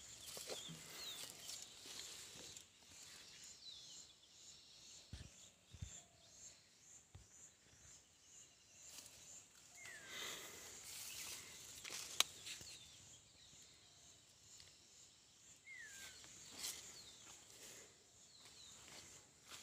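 Quiet rural field ambience: scattered faint bird chirps over a steady high insect hiss, with light footsteps and rustling, and a single sharp click about midway. No engine is heard.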